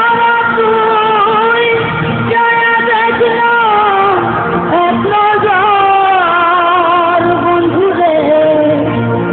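Bengali song: a sung melody of long, held, wavering notes that glide between pitches over steady instrumental accompaniment.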